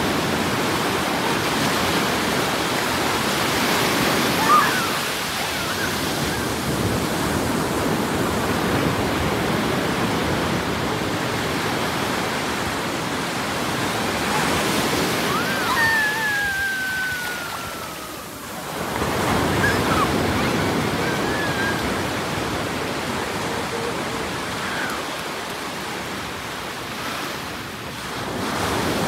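Ocean surf breaking and washing up the beach: a steady rush of waves that eases briefly about two-thirds of the way in, with a few faint high cries in the distance.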